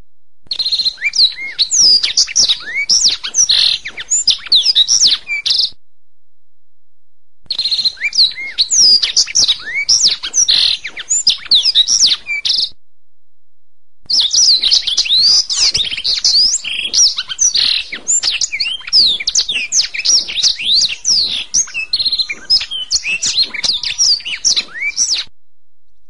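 Domestic canary singing in three long phrases of fast trills and rising and falling whistled notes, with short silent pauses between them.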